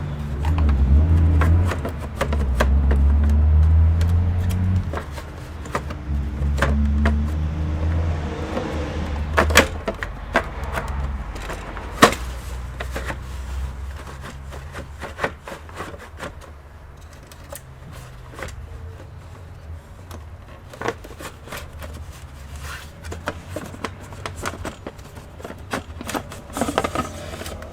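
Clicks, taps and knocks of the computer's plastic and metal parts being handled during disassembly. A low rumble, loud at first, fades out about nine seconds in.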